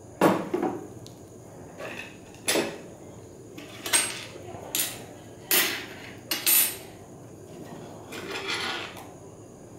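A series of short clinks and knocks, about eight, from laboratory glassware and objects being handled and set down on a bench, with a longer rustle near the end.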